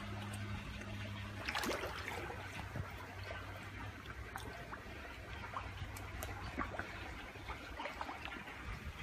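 Koi pond water trickling and lapping, with a splash about a second and a half in and small scattered splashes and clicks after it, over a low steady hum.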